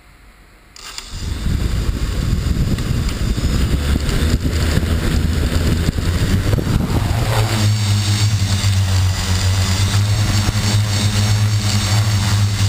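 Xaircraft X650 quadcopter's electric motors and propellers, heard from a camera on its own frame, spinning up suddenly about a second in with a loud rushing noise. In the second half they settle into a steady, even drone as the quad lifts off and climbs.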